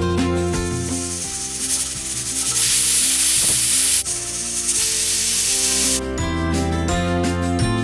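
Steam hissing out of a Butterfly pressure cooker's vent as its pressure is let off. The hiss starts about a second and a half in, grows loud and cuts off abruptly about six seconds in, over background guitar music.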